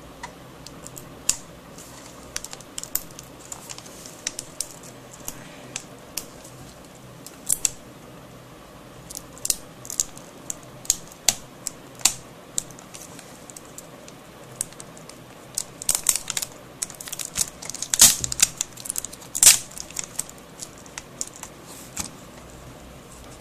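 Small screwdriver clicking, tapping and scraping against the edge and circuit board of a laptop LCD panel while prying loose a glued-down part: scattered light clicks, busier and louder for a few seconds about two-thirds of the way through.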